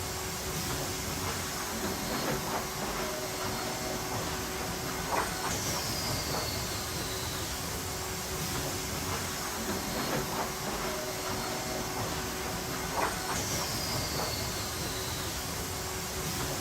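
Sawmill lumber-handling machinery running steadily with a continuous hiss and rumble, now and then a knock of wood. A high whine falls in pitch twice, about eight seconds apart.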